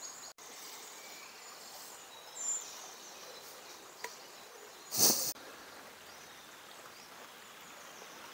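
Quiet woodland ambience: a steady faint hiss with one short high bird chirp about two and a half seconds in, and a brief loud rustle about five seconds in.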